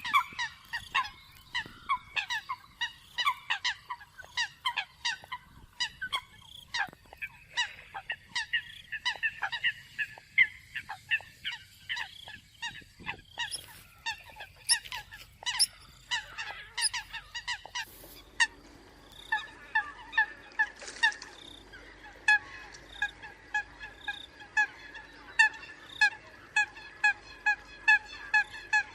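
Eurasian coots calling: a dense, continuous run of short, sharp honking calls, several a second, from more than one bird.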